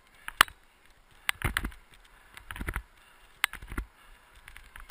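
A dog-pulled wheeled rig jolting over a rough, leaf-covered trail: irregular knocks and rattles, a few of them sharp, with several low thumps.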